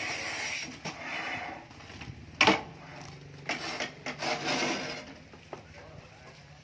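Steel notched trowel scraping across a bed of wet cement mortar on a concrete floor, combing it into ridges for floor tiles, in several long strokes. A single sharp knock about two and a half seconds in is the loudest sound.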